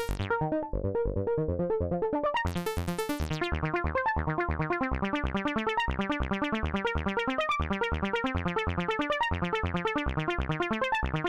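Ableton's Operator synth playing a fast, even pattern of short notes through FabFilter Volcano 3's filter, whose envelope is retriggered by MIDI on every note, so each note opens bright and quickly dulls. About two and a half seconds in, the notes turn briefly brighter.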